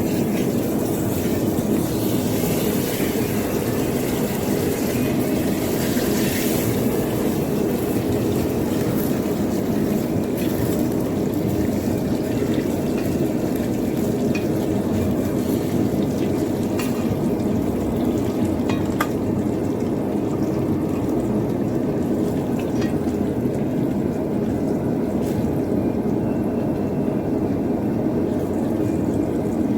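Blacksmith's forge running with a steady rushing noise, with a few faint clicks.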